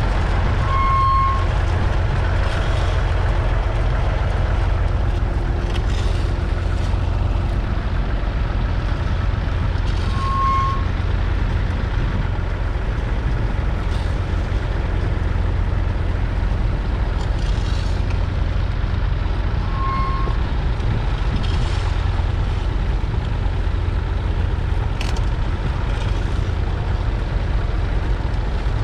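1963 Massey Ferguson 35X's 2.5-litre three-cylinder diesel engine running steadily under load, pulling a two-furrow mounted plough through the soil. A short high beep sounds three times, about ten seconds apart.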